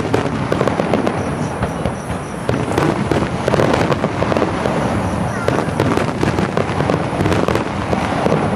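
Aerial fireworks display: many shells bursting in quick succession, a dense unbroken run of bangs and crackles.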